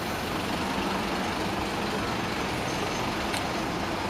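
Scania K230 bus's diesel engine running steadily nearby, under a steady hiss of rain.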